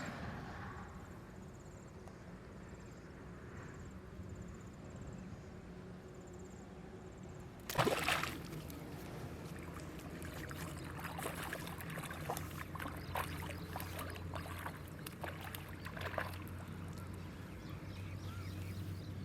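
Water splashing and sloshing in a river: a sudden loud splash about eight seconds in, then irregular smaller splashes and drips, over a steady low hum.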